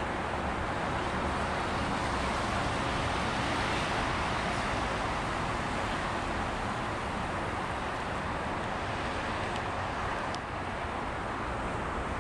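Road traffic: a steady wash of car tyre and engine noise that swells slightly a few seconds in.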